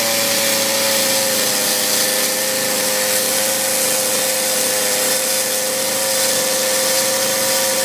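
Carving chainsaw held at steady high revs, cutting into the wood of a carved eagle head.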